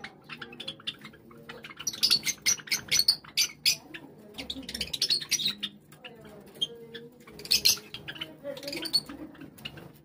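A flock of Java sparrows chirping: short, sharp, high calls that come in quick clusters every second or two.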